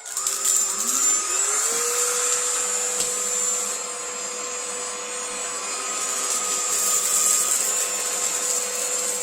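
Vacuum cleaner switched on: its motor spins up with a rising whine over the first couple of seconds, then runs at a steady high pitch. A single sharp click is heard about three seconds in.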